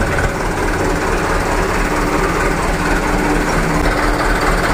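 Mitsubishi Canter dump truck's diesel engine running steadily while the hydraulic hoist tips up the newly fitted dump body.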